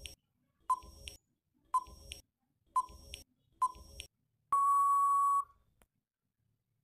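Quiz countdown timer sound effect: short beeps about a second apart, then one longer, steady beep about four and a half seconds in as the countdown runs out.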